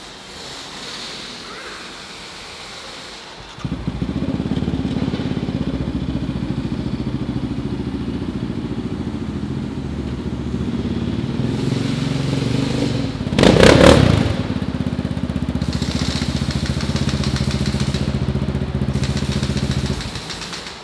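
Yamaha Raptor 700 quad's single-cylinder four-stroke engine with an aftermarket Yoshimura exhaust, running low and steady from about three and a half seconds in. One short throttle blip comes past the middle, and the engine cuts off abruptly near the end.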